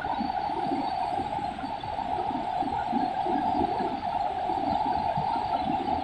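Waterfall rushing steadily, a continuous band of water noise with an uneven lower churning beneath it.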